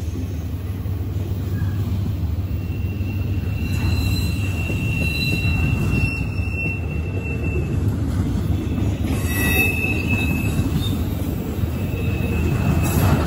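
CSX double-stack intermodal freight train passing, its wheels rumbling steadily over the rails with a second freight train moving on the adjacent track. Thin, high wheel squeals come and go over the rumble, the longest from about two and a half to seven and a half seconds in.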